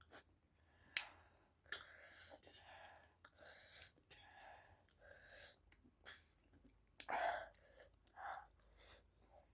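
A person eating spicy ramen close to the microphone: chewing and mouth sounds, broken by sharp little clicks and short breathy bursts, the loudest about seven seconds in.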